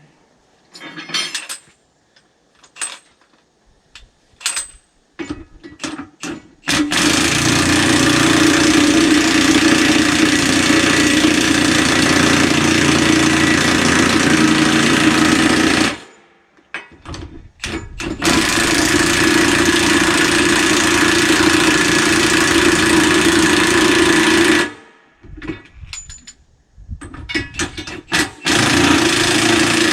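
Milwaukee 1-inch cordless impact wrench hammering lug bolts on a skidder's dual wheel in long runs, about nine seconds, then about six, then starting again near the end. Each run cuts off abruptly, and metal clinks and knocks of the socket and bolts come in between.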